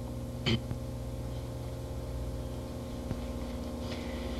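Steady low electrical hum on the recording, with one short noise about half a second in and a faint click near three seconds.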